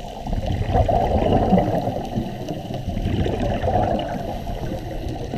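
Muffled underwater noise of a scuba diver breathing through a regulator, the exhaled bubbles gurgling. It swells about half a second in and again around three seconds in.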